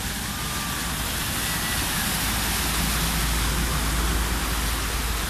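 Cars and a motorcycle driving through floodwater covering a street, with a steady rush of splashing water and tyre noise. The noise swells about three seconds in as the motorcycle passes close.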